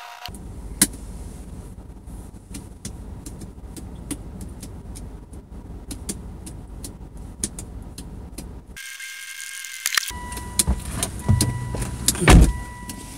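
Car interior with a steady low rumble and scattered small clicks and rustles. About ten seconds in a steady electronic warning tone comes on as the driver's door opens, and near the end there is a heavy thump as the driver drops into the seat and the door shuts.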